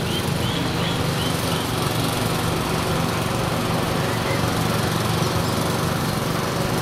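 Small boat's motor running steadily at an even speed, heard from on board.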